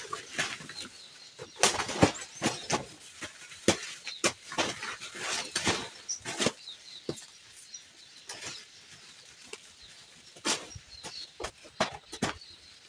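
A sharp hand-held clearing blade slashing through brush: a quick, irregular run of swishing cuts with crisp hits, easing off briefly about two-thirds through before a few more strokes.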